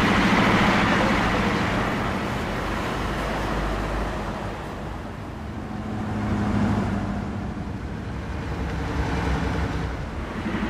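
Road traffic noise: motor vehicles driving past with a low engine hum, louder near the start and again about two-thirds of the way through.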